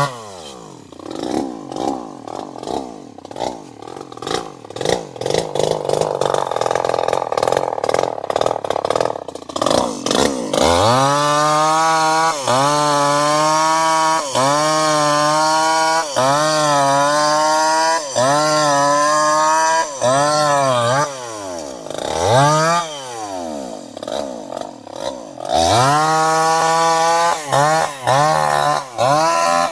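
Chainsaw engine idling with a rapid, uneven popping for about ten seconds, then revved hard. Its high pitch dips and recovers about every second. The pitch falls back near the middle, then revs up again in short bursts toward the end.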